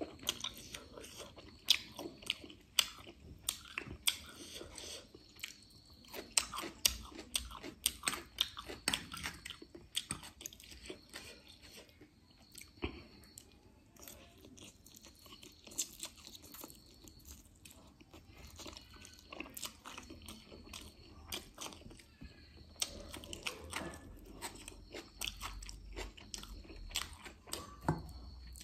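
A person chewing mouthfuls of Korean spicy noodles close to the microphone, with many sharp wet clicks and smacks. The clicks are busiest in the first ten seconds and again from about 23 seconds in, sparser in between.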